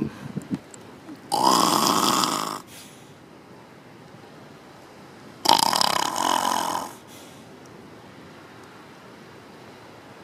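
Grey seal pup howling twice, a defensive call at someone who has come too close: two harsh, drawn-out calls of about a second and a half each, the second coming about four seconds after the first.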